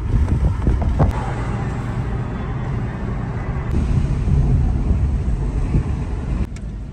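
Road and engine noise inside a moving car's cabin: a steady low rumble of tyres and engine, with a few light clicks about a second in. The noise drops suddenly near the end.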